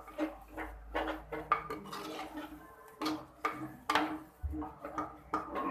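A spoon stirring a thick masala in a clay cooking pot, with repeated irregular knocks and scrapes against the pot.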